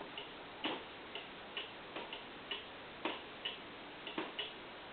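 Cuckoo clock's pendulum movement ticking, about two ticks a second with uneven spacing, then falling silent shortly before the end. The clock is tilted out of beat, so the pendulum is running down and stopping.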